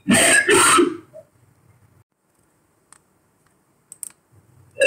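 Two short, loud, voice-like sounds in quick succession in the first second, like a burp, from an amplified and noise-filtered in-ear microphone recording, which the uploader hears as the words "Missy, you're dead?". Then near silence with a couple of faint clicks, and the same sounds start again at the very end.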